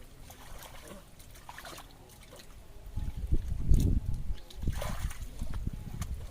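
Muddy shallow water splashing and sloshing as people wade and grope for fish by hand: soft trickles and small splashes at first, then heavier splashes from about three seconds in.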